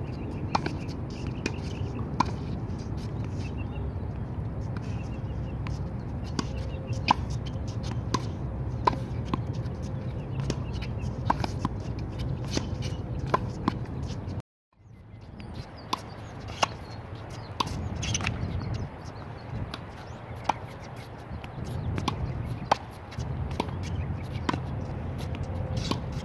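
Tennis rally on a hard court: sharp pops of racquet strings striking the ball and the ball bouncing, every second or so, over a steady low background noise. The sound cuts out briefly about halfway through.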